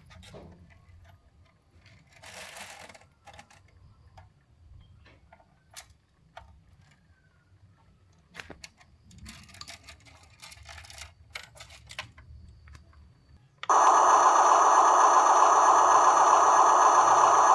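Huina 1580 RC excavator working, with faint scattered clicks and short mechanical whirs. Near the end a loud, steady, rapid mechanical buzz starts abruptly.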